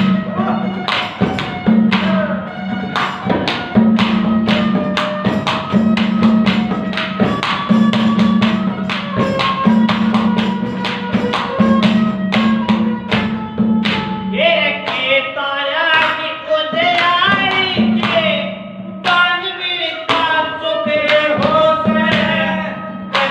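Ragni accompaniment: harmonium melody over a dholak beating a steady, quick rhythm, with a deep drum stroke about once a second. From about two-thirds of the way through, a wavering, ornamented melody line joins higher up.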